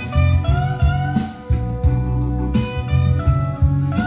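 Slide-guitar music with a deep bass line and drums, played back through Infinity RS-4/B floor-standing speakers. The guitar notes slide up in pitch.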